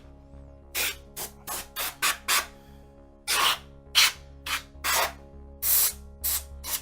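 Can of compressed air fired in a quick, irregular series of short hissing blasts, a few held a little longer, blowing dust out of the inside of a games console. Background music plays underneath.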